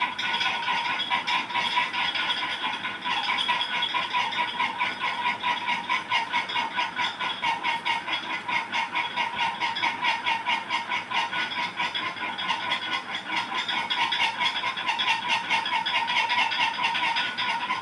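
Crompton ceiling fan squeaking at its ceiling hook as it turns, metal rubbing on metal in a rapid, even run of squeaks that sounds like laughing "ha ha ha".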